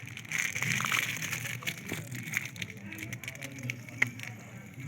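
Battery acid electrolyte being poured from a bottle into a cell of a lead-acid car battery: a hissing trickle that is loudest in the first second or so, with small clicks and one sharp click about four seconds in.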